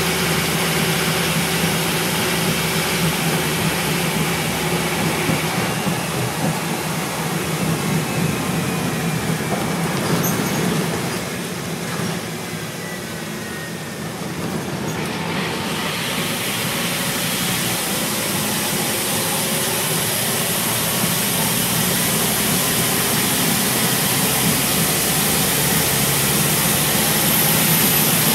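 A Scania N230UB single-deck bus on the move, heard from on board: a steady engine drone with road noise. The sound eases off and quietens for a few seconds in the middle, then builds again towards the end.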